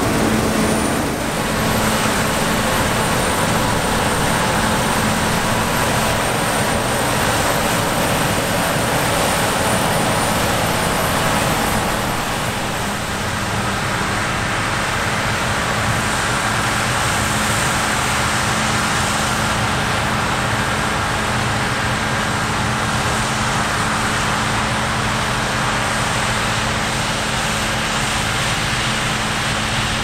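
Combine harvester at work harvesting wheat: a steady drone of engine and machinery that shifts a little about twelve seconds in.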